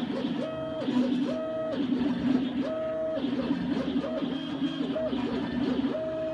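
Stepper motors of a 2'x4' kit CNC router whining as the machine runs an air cut. Their pitch ramps up, holds and drops back with each move, five or six times in a row, over a steadier lower whine.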